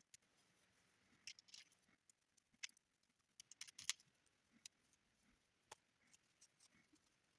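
Near silence with faint, scattered clicks of crocheting: the crochet hook and plastic pony beads on the elastic tapping together, several bunched just before the middle.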